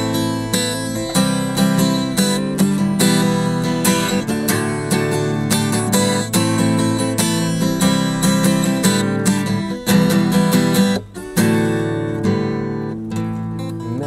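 Acoustic guitar strummed in a steady rhythm. The strumming stops for a moment about eleven seconds in, then carries on more softly.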